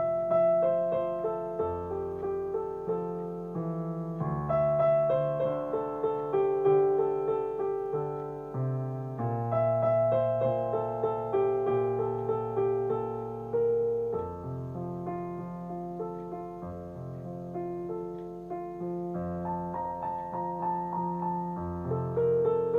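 Slow, gentle piano music: melody notes that fade after each strike over held bass notes.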